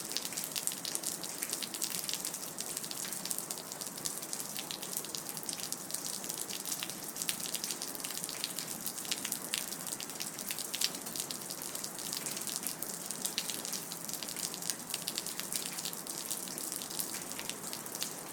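Rain dripping and pattering, a steady hiss of falling water dotted with many quick, irregular drip ticks.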